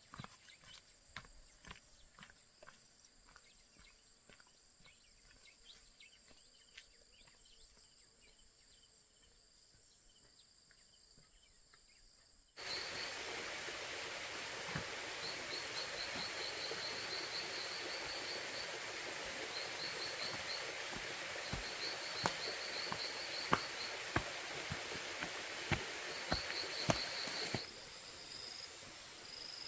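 Outdoor ambience of insects chirping in short, rapid, high trills with scattered clicks, over a steady hiss that suddenly becomes much louder about halfway through and drops back near the end.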